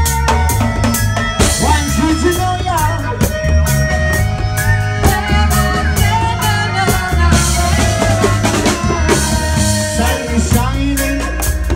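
Live reggae band playing: a heavy bass guitar line and drum kit with a steady beat, with keyboard and melodica lines over the top.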